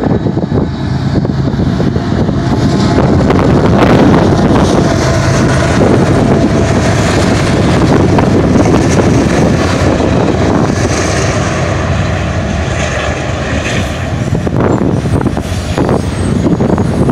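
Freight train passing close: steel wheels rolling over the rail under double-stacked container and trailer well cars, with a GE Dash 9-44CW diesel locomotive going by in the middle of the consist about halfway through. Wind buffets the microphone.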